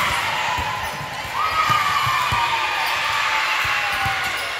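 Echoing gym noise: scattered dull thuds of volleyballs and feet on a hardwood court. About a second and a half in, a voice gives one long call that slides down in pitch over a couple of seconds.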